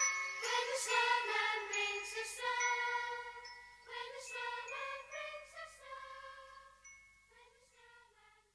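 Music with jingling bells and bell-like tones, fading out over the last few seconds.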